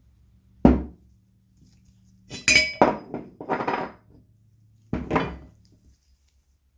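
Loose cast-iron and steel parts of a Leinbrock Ideal coffee grinder clanking and clinking as they are handled and set down on a table: one sharp clank about half a second in, a cluster of clinks and rattles in the middle, and another knock and rattle near the end.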